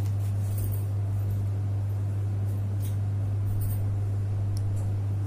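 A steady low hum, with a few faint light ticks as small plastic lancets are handled.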